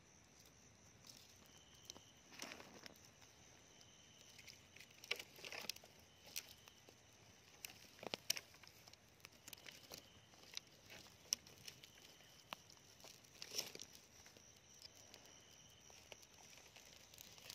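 Faint crackling, rustling and snapping of dry twigs and leaves as a small campfire is built and lit, with a few sharper cracks. A faint high insect trill runs behind.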